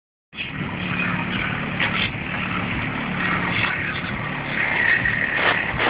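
A car's engine running with road and traffic noise, steady and fairly loud.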